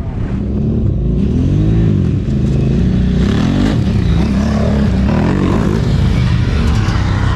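Adventure motorcycle's engine revving up and down over and over as it is ridden, over a steady low rumble.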